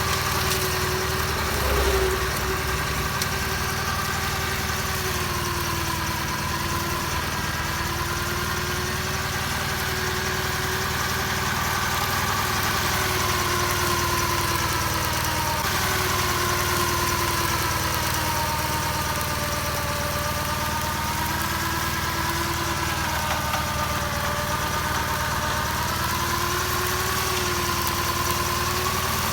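Diesel engine of a Kawasaki BM91 rotary-disc grass mower running steadily, with a whine that slowly wavers up and down in pitch.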